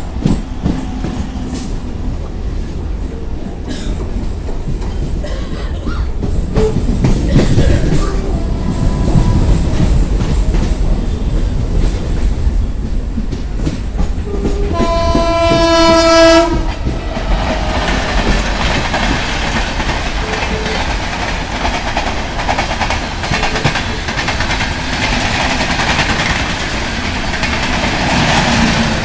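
Train running with a low rumble and the rattle of wheels over rail joints. About halfway through comes a single horn blast of under two seconds, followed by a louder rushing noise.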